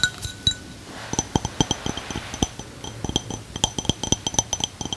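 Quick, uneven light taps and clicks of small hard objects being handled, each with a short bright ring at the same pitch, several a second from about a second in.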